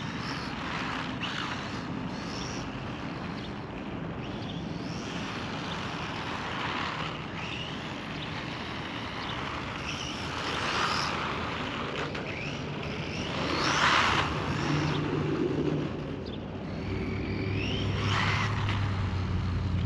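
RC truck with a brushless motor and ESC driving on asphalt: its motor whines in short rising and falling glides with the throttle over the rush of its tyres. The sound swells as the truck passes close, loudest about 14 seconds in, and a low steady hum joins near the end.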